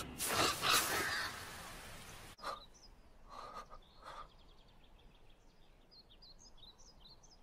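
A rushing noise with a few sharp knocks fades and cuts off abruptly about two seconds in. Then a quiet anime soundtrack follows: a few short breaths or gasps, and small birds chirping in many quick high notes.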